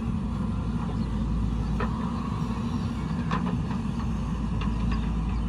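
Diesel engine of a JCB 3DX Super backhoe loader running steadily under load while digging, with a few brief knocks over the engine noise.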